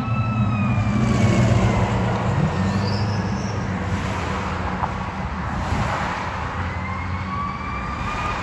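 2018 Seagrave Marauder fire engine's siren wailing: its pitch falls slowly over the first few seconds and climbs again near the end. A low rumble of road traffic lies under it, easing off toward the end.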